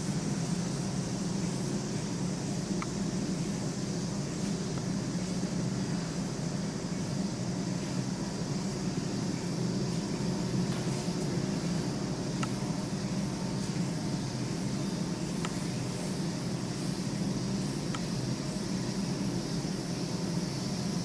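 Steady background hum with a faint high hiss and a few faint scattered ticks, with no distinct event.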